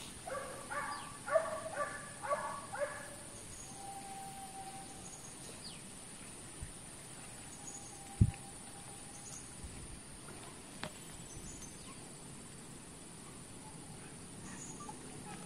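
Hunting dogs barking and yelping in pursuit of a wild boar on the hillside, a quick run of about six calls in the first three seconds, over a steady high insect buzz. A single dull thump about eight seconds in is the loudest sound.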